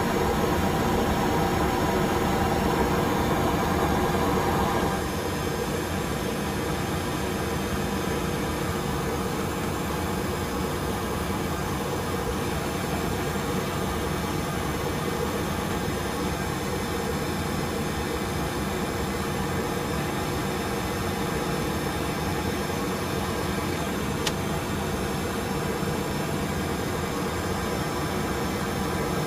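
Steady cockpit noise of an Airbus A320, a constant rushing hum with several steady tones in it. A higher part of the noise drops away about five seconds in, leaving it slightly quieter, and one faint click comes near the end.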